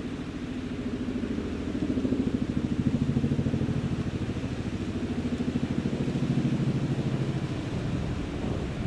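CH-147F Chinook twin-engine, tandem-rotor heavy-lift helicopter on approach: the rapid, even beat of its two rotors, low-pitched. It grows a little louder over the first two seconds, then holds steady.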